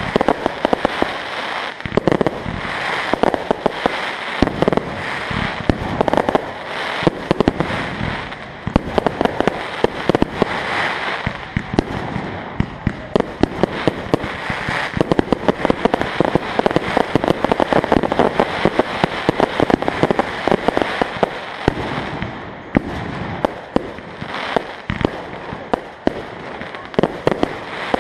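Fireworks going off in a continuous barrage: rapid shots and bursts, several a second, over constant crackling, with no pause.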